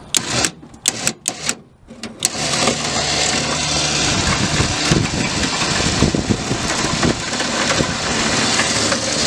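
A few sharp clicks, then an engine starts about two seconds in and runs steadily.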